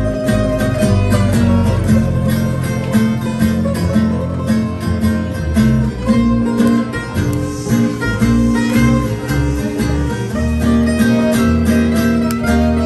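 Small acoustic swing band playing live: violin over two acoustic guitars strumming steady rhythm chords and an upright bass.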